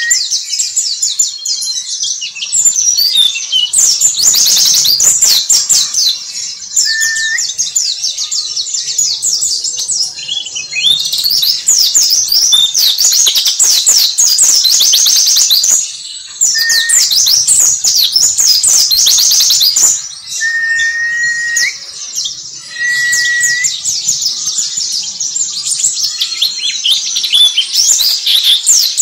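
Caged white-eye (pleci) singing: long runs of fast, high twittering chirps broken by a few short pauses, with several brief, steady lower whistled notes between them.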